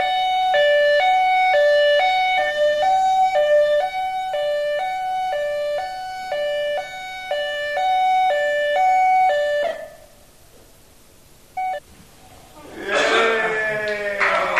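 Ambulance two-tone siren, a high and a low note alternating evenly about once a second, cutting off suddenly about ten seconds in. After a few quieter seconds, applause breaks out near the end.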